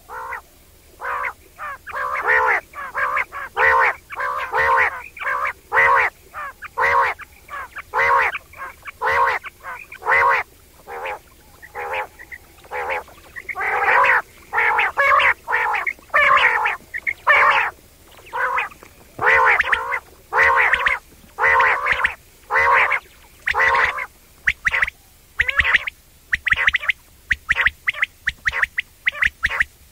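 Quail calling over and over with its nasal 'wong wong' call: short calls, a few a second, in quick runs with brief pauses.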